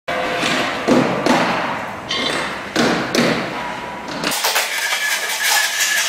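Hand screwdriver work on a printer's sheet-metal top panel: a handful of dull knocks and taps in the first three seconds or so. After about four seconds they give way to a steady hiss with a faint high tone.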